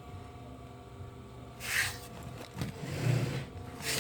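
Steady low hum under handling noise: a short scraping rustle a little under two seconds in and a few soft knocks near the end, as the motor's wires and the tester leads are handled.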